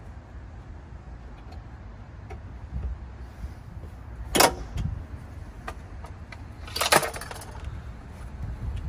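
Two sharp metallic clinks about two and a half seconds apart, with a few faint clicks, over a steady low hum.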